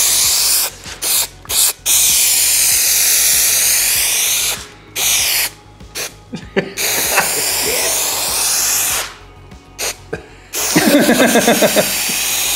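Aerosol spray adhesive hissing from a can in a series of sprays: several long ones of two seconds or more and a few short puffs, separated by brief pauses.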